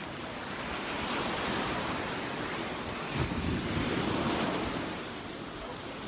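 Surf on a beach: a wave swells and washes in, loudest about halfway through, then eases off, with wind on the microphone.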